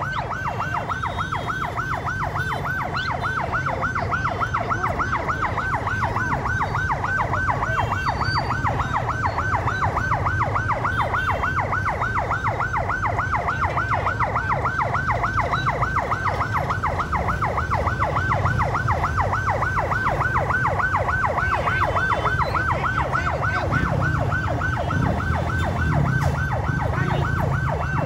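Fire engine's electronic siren sounding a fast, steady yelp: a rising-and-falling sweep repeated several times a second without a break, over a low rumble of engines.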